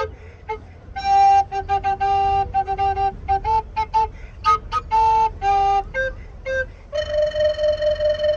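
Two tenor recorders playing a tune together in two parts, mostly short notes with some held ones, ending on one long held note.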